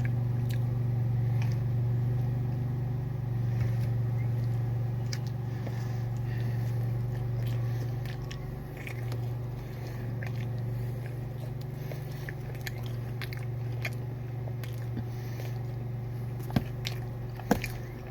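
A person biting and chewing a large grilled chicken wrap, with small wet clicks and crunches from the mouth over a steady low hum. Two sharper clicks come near the end.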